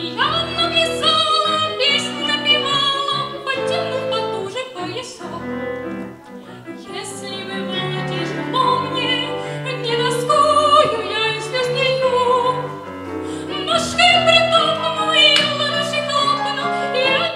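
A young woman singing a song solo, with sustained, wavering held notes, accompanied by piano-sounding chords on a Yamaha electronic keyboard.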